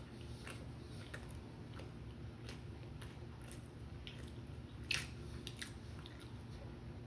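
Close-up eating sounds: chewing and biting, with scattered short wet clicks and crunches, the loudest about five seconds in, over a steady low hum.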